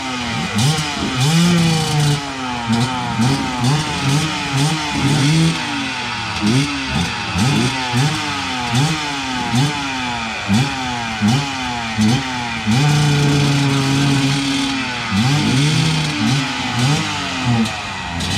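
Enduro motorcycle engine revving in quick repeated throttle bursts, its pitch climbing and dropping about once a second, with a couple of longer steady pulls in the second half.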